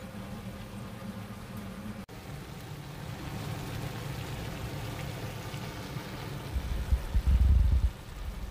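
Chicken feet adobo simmering in the pot, a steady bubbling hiss that picks up after a brief dropout about two seconds in. A loud low rumble breaks in near the end.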